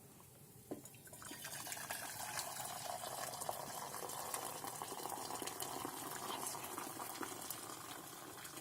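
Water running or pouring in a steady stream, beginning about a second in after a light click.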